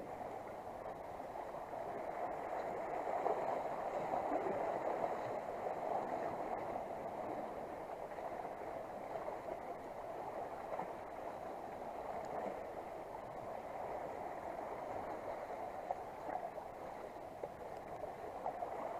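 Seawater washing and splashing steadily around concrete wave-break blocks at the foot of a seawall.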